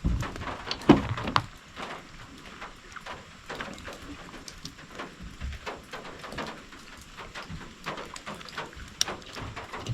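Irregular small clicks and taps of hands fitting fuel lines and small parts onto a string trimmer's carburetor, with a couple of louder knocks about a second in and a sharp click near the end.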